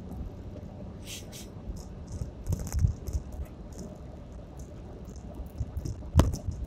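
Car cabin noise while driving slowly over a rough, patched road: a low rumble with scattered rattles and knocks, and one louder thump about six seconds in.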